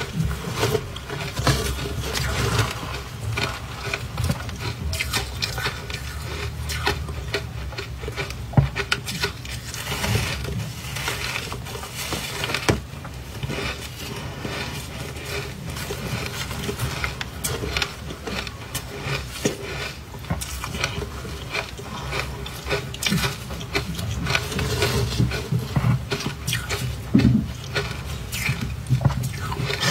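Powdery freezer-frost ice coated in matcha powder, crunching and crumbling in a steady run of small crackles as gloved hands squeeze and break the chunks and it is chewed.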